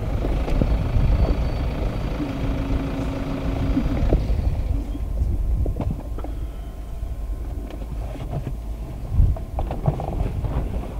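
A vehicle's engine running as it drives, heard from inside the cab. About four seconds in it drops to a quieter low rumble with scattered light knocks.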